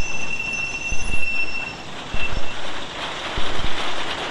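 Wooden roller coaster lift hill: a steady high squeal for the first couple of seconds over irregular low knocks, then the clatter of the train climbing on the lift chain builds about three seconds in.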